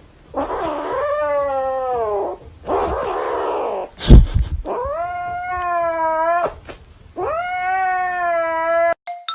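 A cat yowling: three long drawn-out wavering wails, with two rough, noisy stretches between them. A loud thump about four seconds in.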